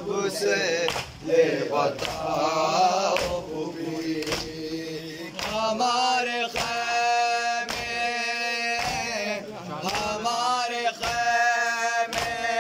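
Men's voices chanting a Muharram noha lament, with long held notes, kept in time by the evenly repeated slaps of hands striking chests in matam.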